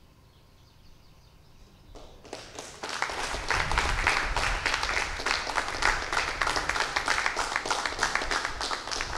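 Applause from a small group of people clapping, starting about two seconds in and quickly building to full strength.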